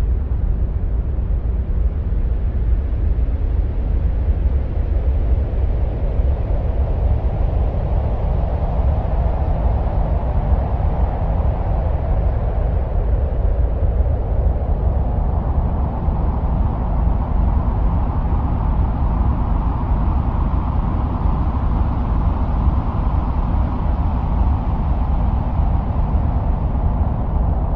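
Continuous deep, wind-like rumbling noise, heaviest in the bass. A hissy midrange band slowly rises and swells over the second half. It is presented as the sound of Mars.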